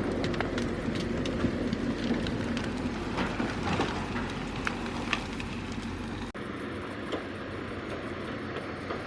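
Heavy tracked logging machine running, its engine droning steadily under many sharp clatters and cracks. The sound cuts off abruptly about two-thirds of the way through and a quieter, steadier engine drone follows.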